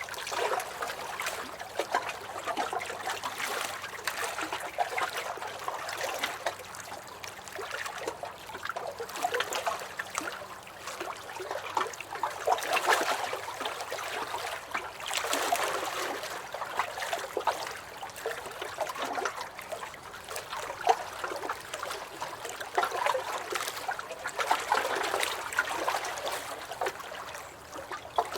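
Small waves washing onto a shore, a continuous splashing wash that swells and eases every few seconds.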